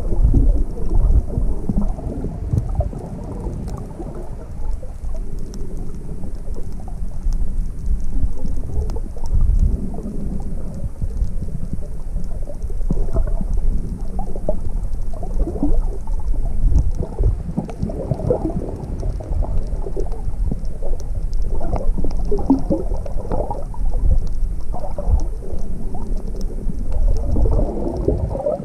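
Muffled underwater rumble and sloshing of water around a camera submerged while snorkeling, with faint crackling ticks.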